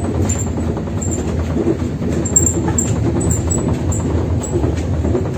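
Moving passenger train heard from inside the coach: a steady low rumble with light clicks and rattles.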